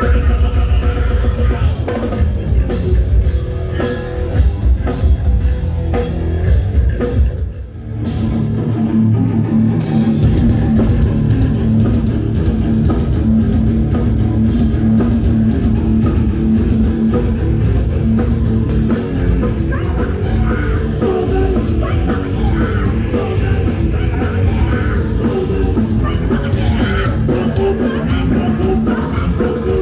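Heavy metal band playing live, with electric guitar and a drum kit, loud throughout; the sound drops briefly about eight seconds in and then the full band comes back in.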